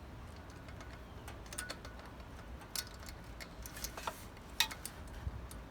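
Scattered light clicks and taps of small metal and plastic parts being handled and pushed into place while the choke lever and ignition switch assembly is refitted, over a steady low hum.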